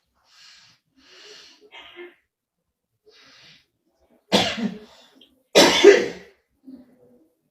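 A sleeping woman breathing softly several times, then two loud, rough snores about a second apart.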